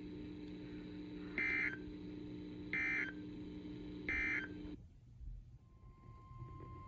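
Three short, buzzy data bursts of the Emergency Alert System's end-of-message (EOM) code, about 1.4 s apart. They signal that the warning broadcast is over. They play over a steady low receiver hum that cuts off shortly after, and a faint steady high tone begins near the end.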